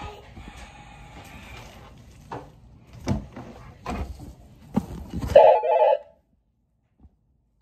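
Muffled rubbing and several soft knocks as an inflatable ball presses and shifts against the microphone. Just over five seconds in comes a short, loud ringing tone, after which the sound cuts out suddenly.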